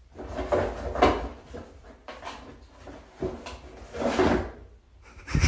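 A cardboard box scraping and rustling in irregular bursts as a cat pushes its head and paw into it, then a thump near the end.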